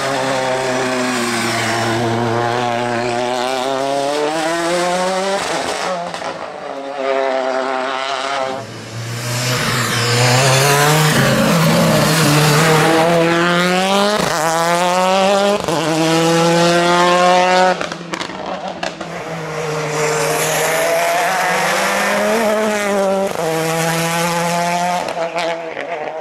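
Nissan Micra N5 rally car's engine at full throttle, its note climbing through the gears and dropping at each shift or lift, over several hard runs.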